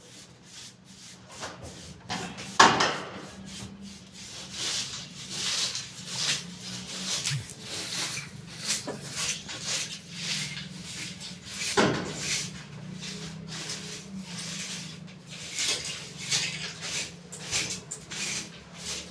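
Irregular scraping and rubbing strokes on a hard surface, with a sharp knock about two and a half seconds in and another near twelve seconds, over a faint steady hum.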